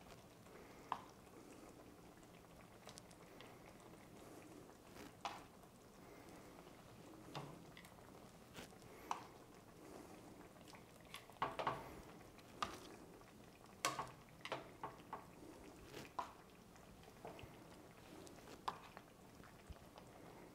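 Tomato sauce simmering faintly on low in a stainless steel pan, with scattered soft clicks and taps as seared chicken pieces are set into it with tongs, several in quick succession in the second half.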